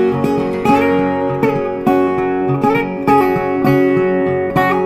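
Background music: plucked acoustic guitar playing steady, evenly paced notes and chords.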